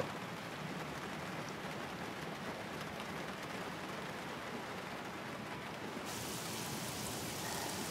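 Steady rain falling on a car's roof and windows, heard from inside the car. About six seconds in, the hiss turns brighter.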